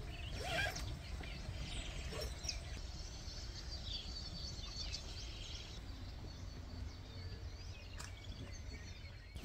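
Birds chirping and calling faintly over a low steady rumble, with a brief rustle about half a second in.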